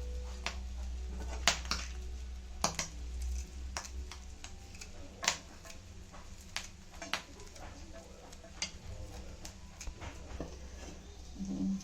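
Metal utensil tapping and scraping on a dosa pan: irregular sharp clicks and knocks over a low steady hum.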